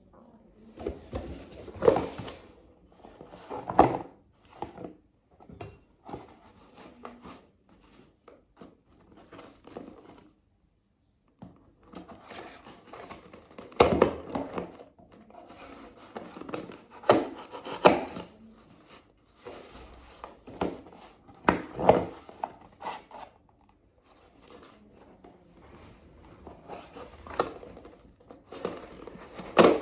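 Irregular knocks, taps and clatter of small objects being handled, with several sharper hits scattered through and a short break of dead silence just after ten seconds.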